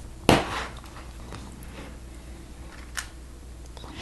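LEGO plates being snapped onto a small brick-built car by pressing down with the thumbs: one loud click about a third of a second in, then a few faint clicks of plastic pieces, one sharper about three seconds in.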